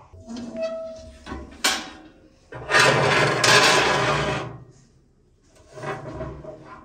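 A heavy baking pan being pulled out of a metal wood-stove oven: a short creak and a sharp clank, then a loud scrape of the pan across the oven's metal floor lasting about two seconds, and a shorter scrape near the end.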